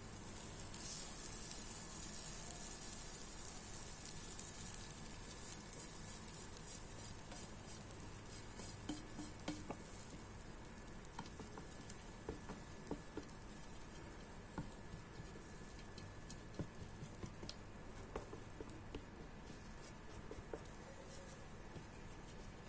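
Waffle batter sizzling on the hot plates of an electric waffle maker: a hiss that is strongest in the first few seconds and then fades, with small crackles throughout.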